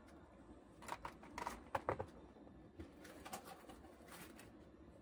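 Faint scattered clicks and rustles of an opened cardboard box and its foam packing being handled.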